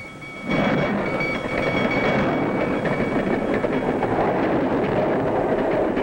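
A train passing, a loud rumble and clatter that starts about half a second in. Under it, a bell's steady ringing fades out within the first few seconds.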